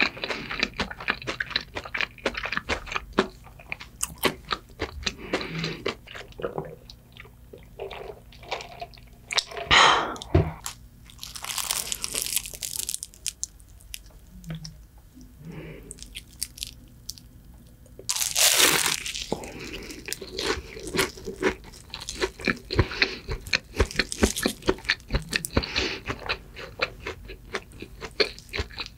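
Close-miked crunching and chewing of a crisp, flaky sausage pastry, a dense run of small crackles. Two louder crackling bites stand out, one about ten seconds in and one after a quieter stretch.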